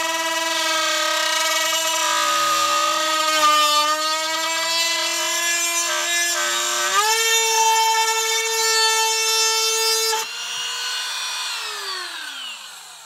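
Dremel rotary tool running with a steady high whine while its bit is pressed into a toy car's hood, the pitch sagging a little under load; about seven seconds in the whine steps up higher, and near the end it winds down with a falling pitch. The bit is too dull to bore through.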